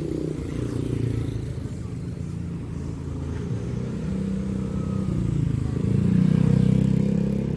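Street traffic: vehicle engines running and passing close by on the road, one growing louder about six seconds in.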